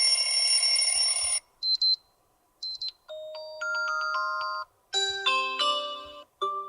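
Xiaomi Redmi Note 9 Pro's built-in alarm tones played one after another, each cut short with a moment of silence between: first a buzzy electronic tone, then a short high chime heard twice, then two brief melodies of clean, bell-like notes.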